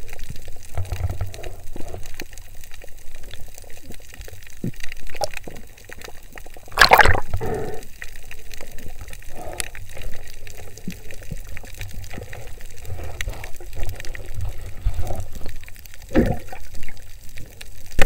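Water rushing and sloshing around a camera underwater as a diver swims along a reef, with a low rumble and scattered short rushes. There is a sharper, louder rush about seven seconds in and another near the end.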